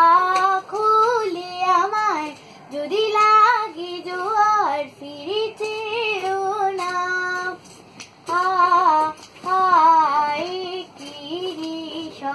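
A young woman singing a Bengali song alone, with no accompaniment, holding and gliding between sustained notes in short phrases.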